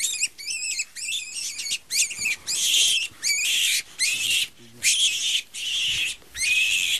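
A wild rabbit caught by a lurcher, screaming in distress: about ten shrill, high-pitched squeals in quick succession, each about half a second long.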